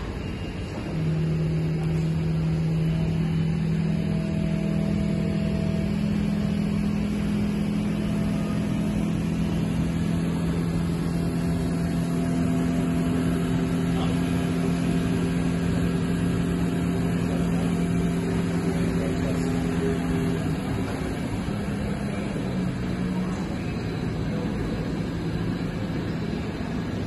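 SBB RABe 502 double-deck electric train standing at the platform, its electrical equipment humming with several steady low tones. The hum sets in about a second in and stops about twenty seconds in.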